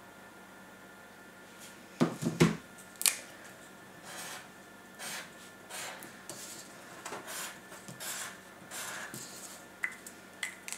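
Marker pen drawing short scratchy strokes on card, a stroke about every half second to second, with a few knocks against the wooden table about two seconds in and a couple of clicks near the end.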